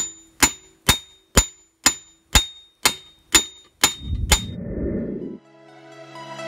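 Blacksmith's hammer striking red-hot steel clamped in a bench vise: about ten ringing metallic blows, roughly two a second. After the last blow a low rumble lasts about a second and a half, and music begins near the end.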